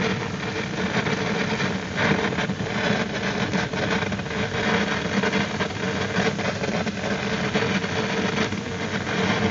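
Steady engine and road noise inside a moving car, a low rumble with a constant hiss over it.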